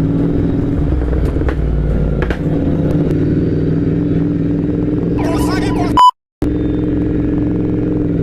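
Tuned Royal Enfield GT 650's 648 cc parallel-twin engine with an aftermarket Moto Torque exhaust, running steadily while the bike is ridden. About five seconds in, a brief higher-pitched noise rises over it, and the sound cuts out for a moment just after.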